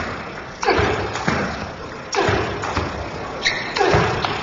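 Table tennis rally: the ball is struck back and forth with bats and bounces on the table, a sharp hit roughly every two-thirds of a second.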